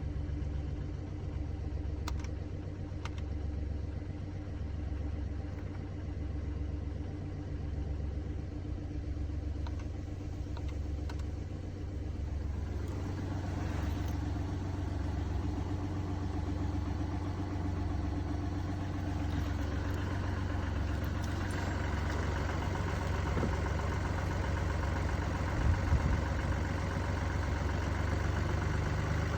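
Mini Cooper D three-cylinder diesel idling with an even, pulsing low throb, the sign of a broken dual mass flywheel. About halfway through, a higher rushing noise comes up over the engine note, and there is one short knock near the end.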